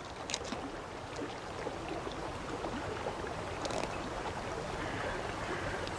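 Steady rush of shallow river water running over gravel, with a couple of faint clicks.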